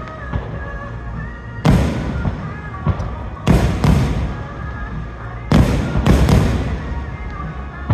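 Fireworks bursting overhead: about six loud booms in three clusters roughly two seconds apart, with music playing between them.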